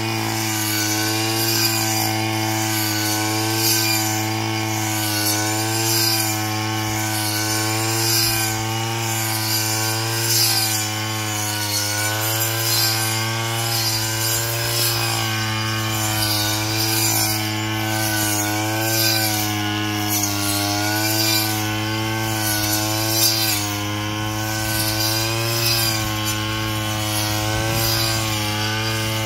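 Brush cutter engine running steadily at high speed with a 12-inch circular saw blade cutting grass, its pitch wavering slightly under load, with a hiss that swells about once a second as the blade swings through.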